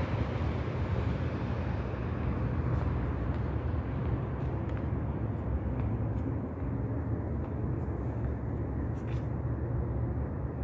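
A steady low rumble of outdoor background noise. Its upper hiss dies away after a few seconds, and a few faint ticks come near the end.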